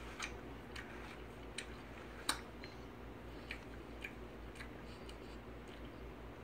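Faint, irregular crunching of someone chewing a crisp apple, with a sharper click about two seconds in.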